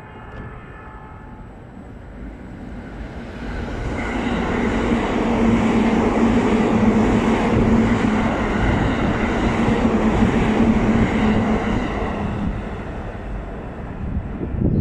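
E657 series limited express Hitachi passing through the station at speed without stopping. The noise builds from about three seconds in, is loudest in the middle with a steady low hum and a higher whine, and fades away near the end.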